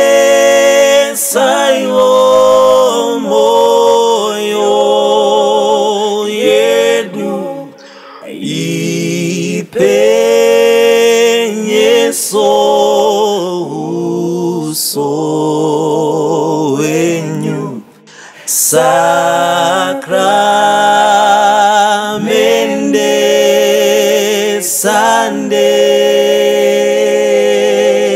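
Small group of men singing a Shona Catholic hymn in harmony, a cappella, with vibrato on the held notes. Phrases break off briefly about 8 and 18 seconds in.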